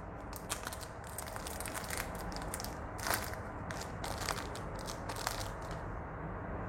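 Zippo lighters being handled: irregular small clicks, taps and rustles, the loudest about three seconds in.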